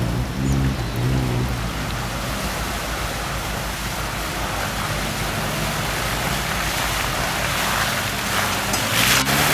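Lada Niva 4x4 engine pulling through deep mud, the revs rising and falling a few times at the start and climbing again near the end. In between, a steady wash of mud and water splashing under the tyres.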